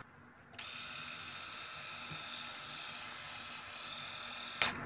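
Xiaomi Enchen Blackstone 3D rotary electric shaver switched on and running with its cutter head refitted after cleaning: a steady high-pitched whirr that starts about half a second in and stops with a click near the end.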